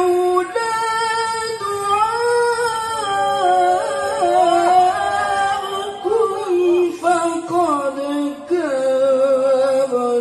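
Quran recitation in melodic tilawah style by a qari singing in a high register. Long held, ornamented notes glide and waver in pitch, without clear word breaks.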